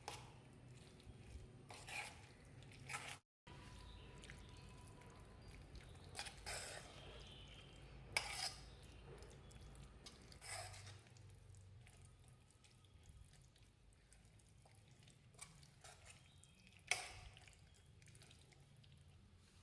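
Quiet kitchen handling sounds: utensils and dishes clinking now and then, with the sharpest clinks about eight seconds in and again near the end.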